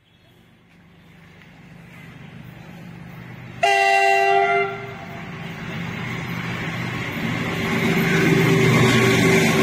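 Diesel locomotive hauling a freight train approaching on the rails, its rumble growing steadily louder. About a third of the way in comes one loud horn blast lasting about a second.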